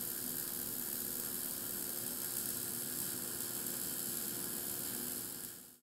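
Wire-fed welding arc of a Climax BW3000 automatic bore welder laying weld inside a bore: a steady sizzling hiss with a faint low hum under it. It fades out and stops just before the end.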